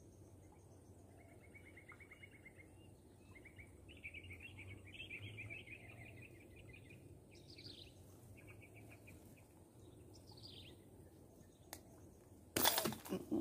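Birds chirping faintly in short rapid trills, with a couple of falling calls, over a low background hum. Near the end a brief loud rustle as reeds are pushed aside by hand.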